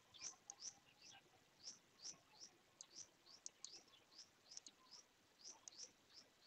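Faint chirping of small birds: a rapid, irregular run of short high chirps, about three a second.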